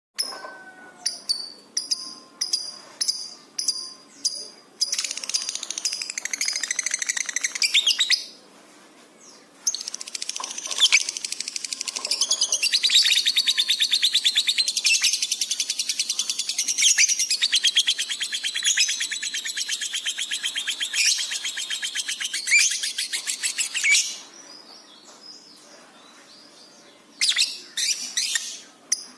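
Lovebird in full song: spaced sharp chirps at about two a second, then a burst of rapid chatter. After a short lull comes a long unbroken chattering trill lasting about fourteen seconds, and a few more chirps near the end.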